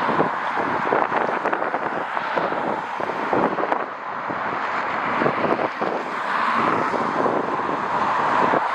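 Strong gusty wind buffeting the microphone: a steady rushing noise broken by many irregular thumps.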